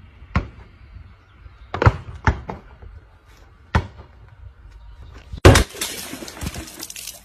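A ball bouncing hard on paving stones: four sharp thuds, unevenly spaced, in the first four seconds. About five and a half seconds in, a sudden loud hit followed by a rough rushing noise.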